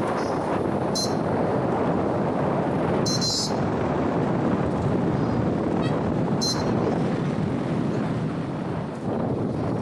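Wind rushing over the microphone with road and engine noise from a moving two-wheeler, steady throughout. Three short high chirps cut through about one, three and six and a half seconds in.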